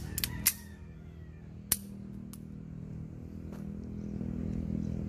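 Sharp metallic clicks and clacks from a Beretta M92FS 9mm pistol being handled: a quick cluster in the first half second with a brief ring, a loud single click about 1.7 s in, and fainter ones after. A low steady hum grows slowly louder underneath.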